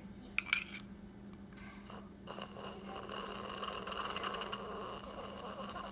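A metal spoon clinks against a small glass bowl about half a second in. From about two seconds in, a toddler slurps milk from the tipped-up bowl in one long, steady draw.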